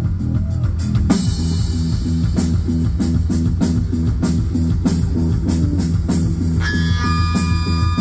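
Live rock band playing amplified electric guitars and a drum kit: a repeating low riff over a steady, even drumbeat. Near the end, long held high guitar notes come in over it.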